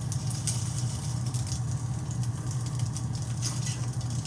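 Food frying in a pan on the stove, with scattered crackles and pops over a steady low hum.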